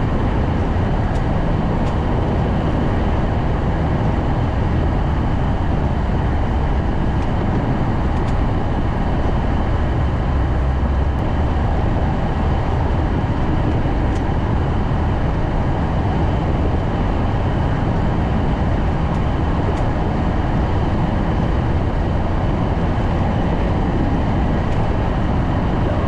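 Vehicle driving slowly through deep snow: a steady low rumble of engine and tyre noise, heard from inside the cabin.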